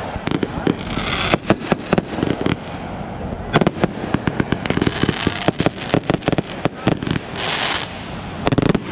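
Consumer fireworks going off in quick, irregular succession: many sharp pops and bangs, with hissing, crackling bursts about one, four and seven and a half seconds in.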